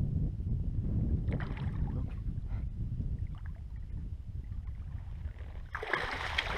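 Steady low rumble of the boat on the water, then about six seconds in a loud splash as a hooked sea-run brown trout thrashes at the surface and is scooped into a landing net.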